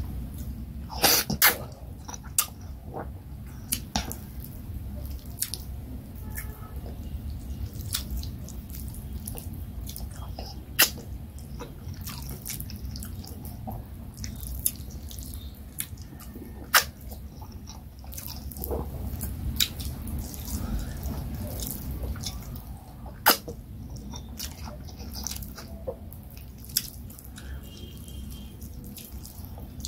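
Close-up eating sounds: oat fufu and vegetable soup being chewed, with sharp wet mouth clicks and smacks scattered every few seconds over a steady low hum.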